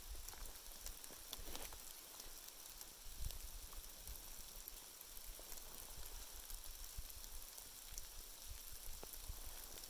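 Small open flame burning on a split stick of wood: faint crackling and hiss with scattered small ticks, over a low rumble.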